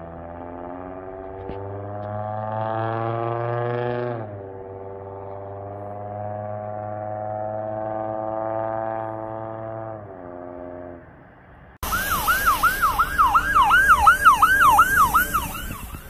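Emergency vehicle siren in a slow wail, its pitch rising for a few seconds, dropping, then rising and falling again. Then a fire truck's electronic siren switches in suddenly, much louder, in a fast yelp of about two sweeps a second, over road noise.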